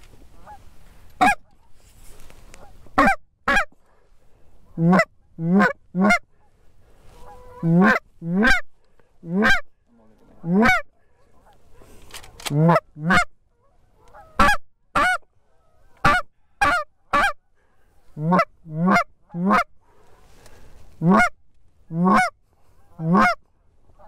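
A short-reed goose call blown in a long series of Canada goose honks and clucks. Each note breaks from a low tone up into a sharp high honk, coming singly or in quick pairs, about two dozen in all with short pauses between them.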